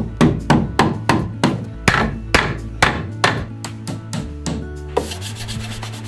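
Hammer tapping a cedar shelf board into place: a run of sharp wooden knocks, about two to three a second, the later ones lighter. About five seconds in they give way to a fast rasping scrape, over faint steady background music.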